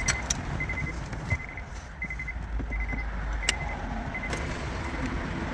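Plastic dash trim being pried loose with a knife, giving a few sharp clicks and snaps. Under it runs a steady low hum and a faint high beep repeating about every 0.7 s.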